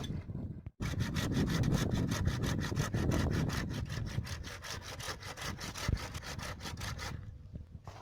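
Saw cutting through tree wood in quick, even strokes, starting after a brief break about a second in and stopping about a second before the end.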